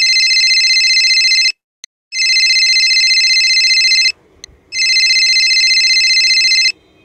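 Telephone ringing: a loud, high warbling electronic ring in three long bursts of about two seconds each, separated by short gaps.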